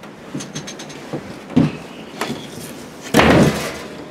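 A few short knocks on the wooden blind, then a heavy thump a little over three seconds in: the hinged plywood floor hatch of a hunting blind dropping shut.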